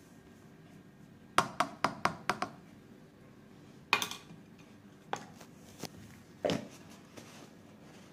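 Green plastic measuring spoon knocking against a plastic jar and bowl while scooping multani mitti powder: a quick run of about six light taps, then a few scattered knocks.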